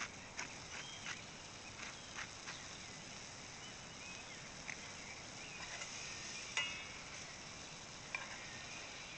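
Wood fire crackling, with scattered sharp pops over a steady hiss. The pops come more often in the first two and a half seconds, and a louder crack with a brief ring comes about six and a half seconds in.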